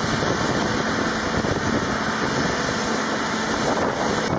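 Steady, loud engine and machinery noise on an airfield flight line around a parked B-1B bomber, an even rushing sound with no distinct beats or changes.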